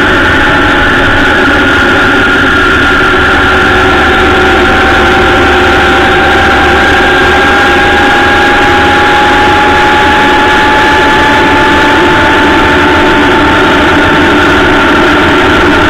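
Honda Gold Wing motorcycle cruising on an open road: steady, loud engine and road noise, with a whine that rises slowly in pitch through the middle.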